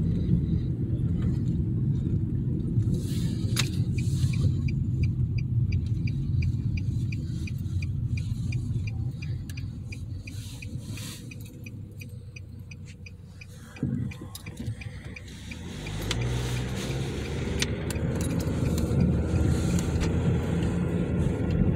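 Car cabin road noise from the back seat of a moving car: a steady low rumble that fades for a few seconds past the middle, with a single knock, then builds up again.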